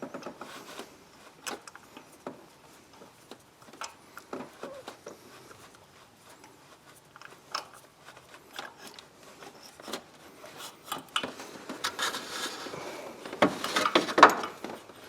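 Hand tools and small parts being handled while working in an engine bay: scattered light metallic clicks and clinks, then a longer stretch of rubbing and scraping near the end.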